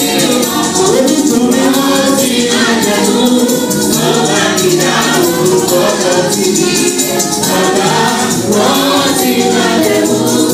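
Church choir of women singing a gospel song together into microphones, amplified through the church's loudspeakers, over a steady rhythm of shaken hand percussion.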